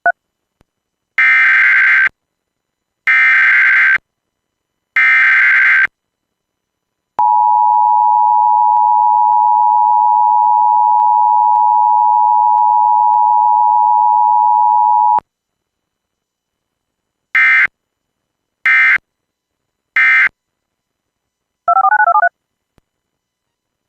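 Emergency Alert System tones: three one-second screeching bursts of the SAME digital header, then the steady two-tone attention signal held for about eight seconds, then three short end-of-message data bursts. A brief burst of shifting tones follows near the end.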